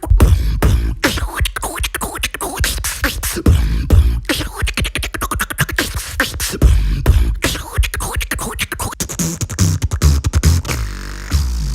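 Beatboxing: a performer's mouth and throat making a fast run of sharp percussive clicks and hits, broken every few seconds by deep bass notes, with a held low bass tone near the end.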